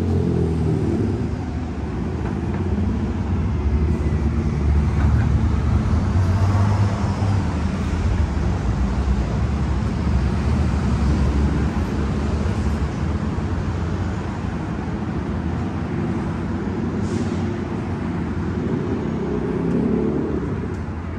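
Downtown city street traffic: cars and other vehicles driving past close by, a steady engine and tyre rumble. One vehicle's pitch drops as it passes at the start, and another's rises as it approaches near the end.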